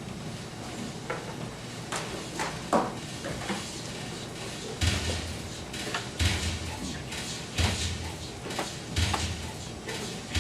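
A series of knocks and clattering clicks, turning about halfway through into heavy thumps that recur at a steady spacing of roughly one and a half seconds.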